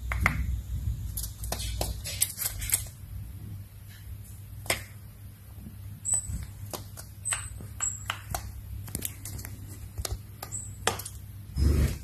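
Great tit pecking at tape and a wall, a string of sharp, irregular taps, with a few short, very high peeps from about six seconds in. A low, steady hum sits underneath.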